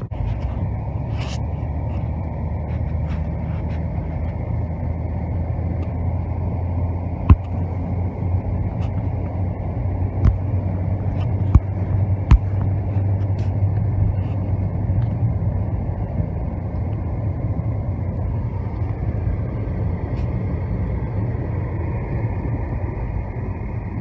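Car driving at road speed, heard from inside the cabin: a steady low road and engine rumble. A few sharp knocks stand out about a third to halfway through.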